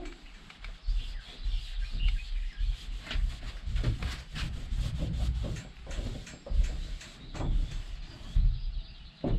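Irregular knocking, low thumps and scraping from hand work on the van's interior wall panels.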